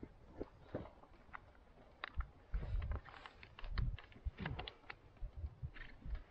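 Footsteps crunching on a hiking trail: irregular crunches and clicks with dull low thumps, loudest from about two to four and a half seconds in.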